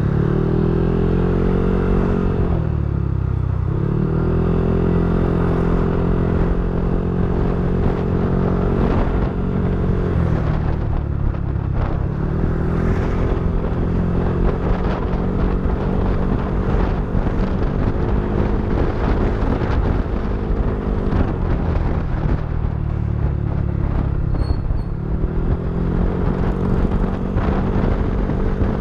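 Yamaha NMAX v3 scooter's single-cylinder engine running loudly through an aftermarket TSMP 2.5 exhaust. Its steady note dips and picks back up three times, about three seconds in, around ten seconds and again past twenty seconds.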